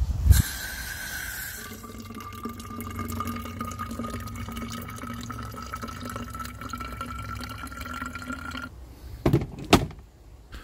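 Water running from the tap of a plastic water container into a plastic bottle, its pitch rising steadily as the bottle fills, stopping near the end. A knock at the start and two sharp clicks after the pour.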